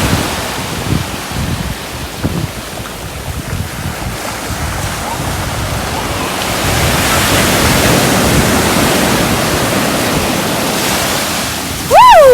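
Sea waves washing on the shore, one surge building and falling away in the middle, with wind buffeting the microphone. Near the end a short, loud call falls in pitch.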